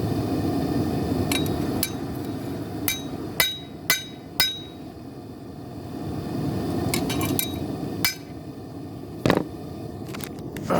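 Rounding hammer striking a hot knife blade on an anvil: about ten separate, unevenly spaced blows, each with a short ringing clink, over a steady low rumble. They are light straightening blows to take the warp out of the forged blade.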